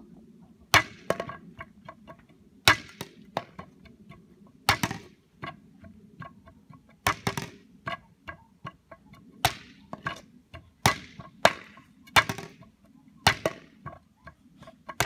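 A yellow plastic toy bat striking a wooden pole over and over: a dozen or more sharp knocks at uneven intervals, some in quick pairs.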